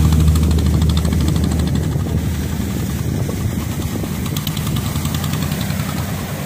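An engine running steadily at low revs, slowly fading, over the wash of breaking surf.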